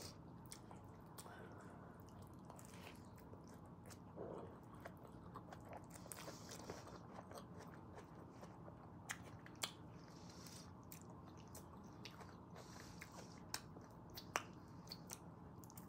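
Faint chewing of fries and a burger, with scattered small mouth clicks and a few sharper clicks in the second half.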